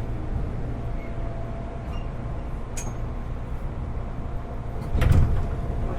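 Interior running sound of a JR 205 series electric train's motor car drawing into a station: a steady low rumble with a faint thin whine, and a loud thud with a short rush of noise about five seconds in.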